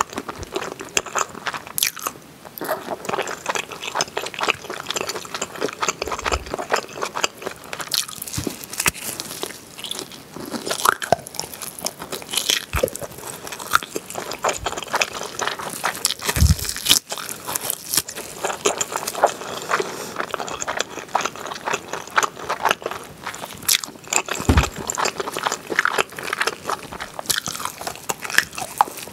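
Close-miked eating sounds: meat bitten off oven-baked pork back ribs dipped in melted cheese and chewed, a dense run of small clicks from the mouth, with a few low bumps.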